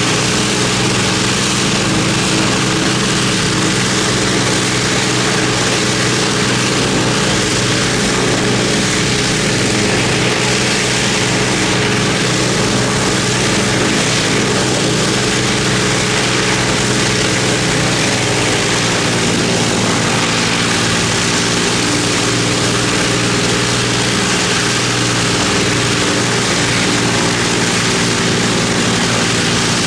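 Avro Lancaster's Rolls-Royce Merlin V12 piston engines running steadily on a ground engine test, propellers turning.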